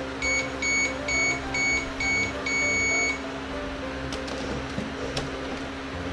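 Toy microwave oven beeping at the end of its cycle: five short beeps and then one longer beep, all on the same high pitch, over a steady hum. A few faint clicks follow.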